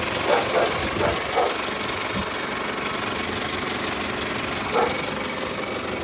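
1998 Toyota Camry's four-cylinder engine idling steadily, with a few short hisses of cleaner sprayed at the intake hose. The engine is running lean from a vacuum leak at a cracked rubber intake hose.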